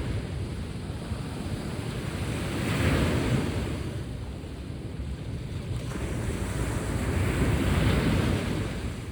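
Sea waves breaking and washing on the shore, two waves swelling and falling away a few seconds apart, with wind rumbling on the microphone.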